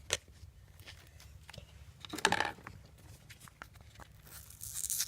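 Foam slime beads and their plastic container being handled: scattered small clicks and crinkling, tearing-like rustles, one short burst about two seconds in and a longer, rising one near the end.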